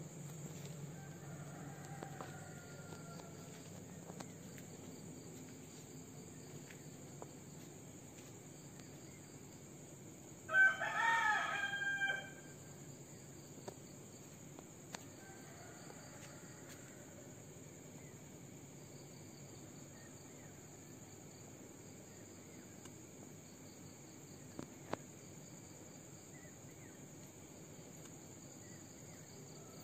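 A rooster crowing once, loud, about ten seconds in, with fainter crowing from farther off near the start and again around sixteen seconds.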